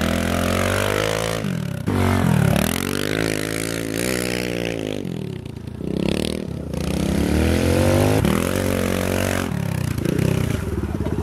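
Small pit bike engine revving up and down as it is ridden around the corners of a muddy track, its pitch rising and falling with each burst of throttle. It drops away briefly about five to six seconds in, then picks up again.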